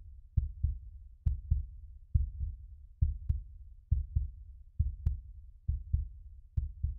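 Heartbeat sound effect: pairs of low thumps, lub-dub, repeating steadily a little faster than once a second.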